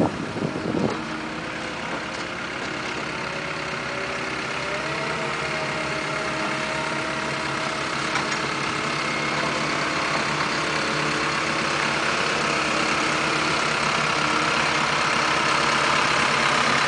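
Compact tractor engine running steadily as it pulls a grading implement across a sand bed, growing louder as it draws nearer. Wind buffets the microphone in the first second.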